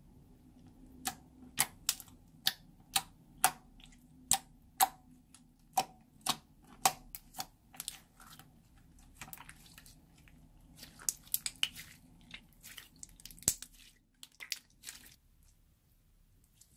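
Transparent slime being pressed and worked by hand, giving sharp clicking pops about two a second, then a quicker, irregular run of squishy crackles that stops near the end.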